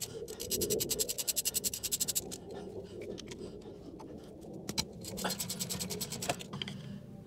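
Socket ratchet clicking rapidly as it is worked back and forth to undo a brake caliper guide-pin bolt. There are two runs of fast clicking, one of about two seconds at the start and a shorter one about five seconds in, with a few single clicks between.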